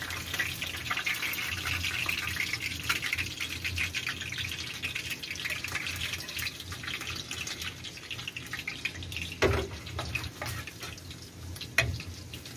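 Oil sizzling and crackling in a frying pan on a gas stove, strongest for the first few seconds and then easing, with two short knocks late on.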